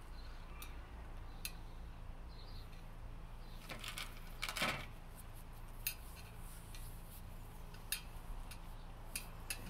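Skittles being picked out of a small plastic bowl and set down one by one on a ceramic plate: scattered light clicks and taps, with a louder short clatter a little under five seconds in.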